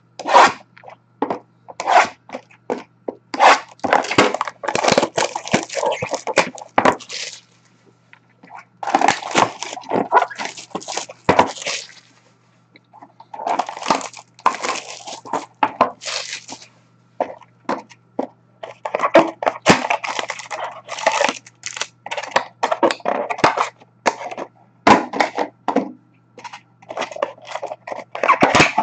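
Plastic wrapping on a sealed box of trading cards crinkling and tearing as it is opened by hand, in bursts of sharp crackles with short pauses between.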